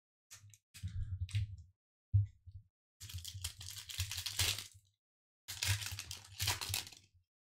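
Foil wrapper of a Pokémon Vivid Voltage booster pack crinkling and tearing as it is handled and opened, in four bursts of rustling.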